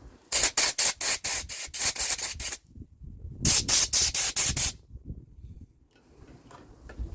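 Compressed-air blow gun blasting in quick, loud, pulsed bursts: a run of about two seconds, a short pause, then a run of about one second.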